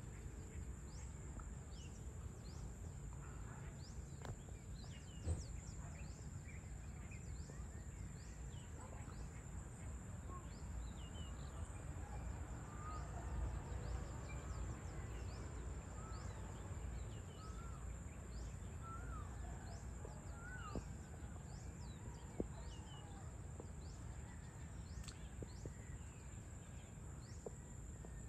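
Outdoor evening ambience: a steady high-pitched insect drone and scattered short bird chirps over a low steady rumble, with a few sharp ticks.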